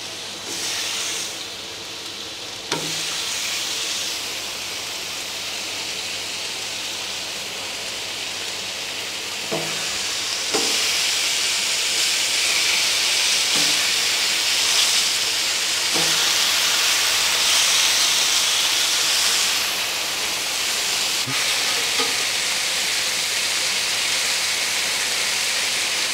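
Marinated beef for carne asada sizzling on a hot Blackstone flat-top griddle as slices are laid down one after another beside cooking chicken. The sizzle is a steady hiss that grows louder in steps, about three seconds in and again about ten seconds in, as more meat goes down, with a few short soft knocks as pieces land.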